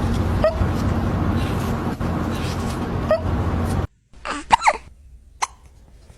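Kitten hiccuping: short sharp hics, two of them over a loud steady rumble, then after a cut a quick cluster of hiccups and one more a second later.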